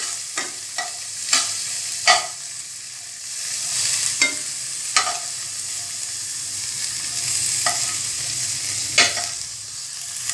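Green capsicum and garlic sizzling in hot oil in a wok, with a spatula knocking and scraping against the pan at uneven intervals as they are stirred.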